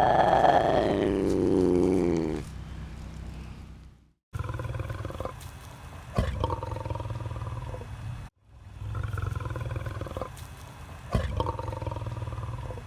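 A big cat's loud, drawn-out call with a falling pitch, ending about two seconds in. It is followed by quieter animal sounds in two separate clips, split by brief silent cuts.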